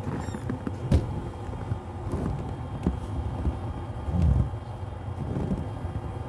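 A steady low rumble with a few scattered knocks and thumps, and a louder low swell a little past the middle.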